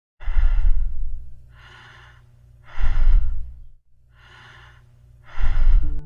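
Normal, evenly paced breathing (eupnea) as heard on lung auscultation: five even breath sounds, louder ones alternating with softer ones, about two and a half breath cycles.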